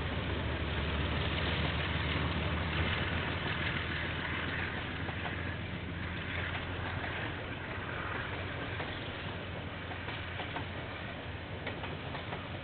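Diesel train engine running with a steady low hum, louder over the first few seconds and then slowly fading as it passes.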